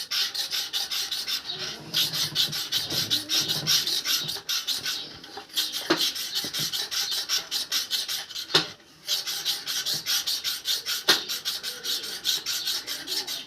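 Rapid back-and-forth scraping of a metal tool inside a motorcycle wheel, working out old lubricant that has dried out completely, at about five strokes a second with short breaks a few times.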